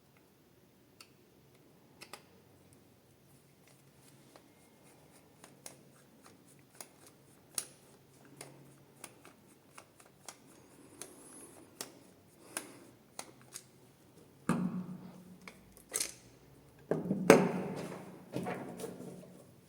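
Hand-handling noises: scattered light clicks and taps, then louder rustling and scraping in several bursts over the last five seconds.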